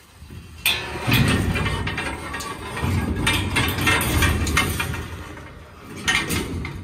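Steel livestock pen gates and latches being worked open: repeated metallic clanks and rattles starting about half a second in, easing briefly near the end before a few more clanks.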